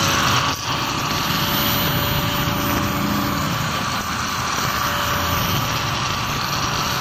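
Hitachi G10SP4 electric angle grinder running unloaded at full speed, its motor giving a steady high whine, with one brief knock about half a second in.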